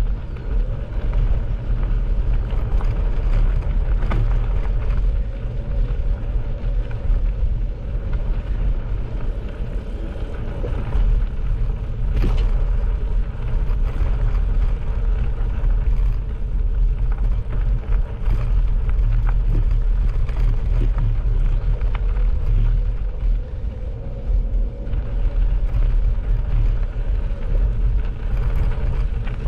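Bicycle riding along a gravel track: a steady, heavy low rumble with a few sharp clicks.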